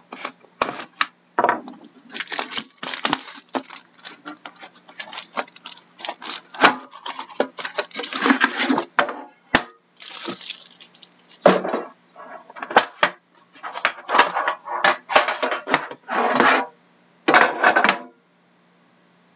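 Plastic shrink-wrap crinkling and tearing as it is slit and pulled off a metal card tin, with sharp clinks and clicks of the tin and its lid being handled. The rustling comes in irregular bursts and stops shortly before the end.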